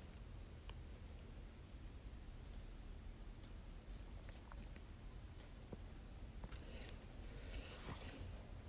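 Faint background hiss with a steady high-pitched whine throughout, and a few scattered faint clicks.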